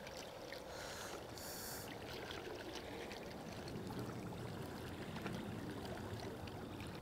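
Small waves lapping and trickling against a rocky lakeshore, a steady low wash with a few faint clicks.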